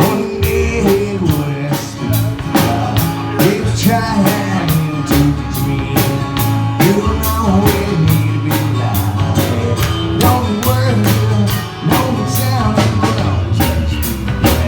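Rock band music with a steady drum beat, bass and guitar, and some singing.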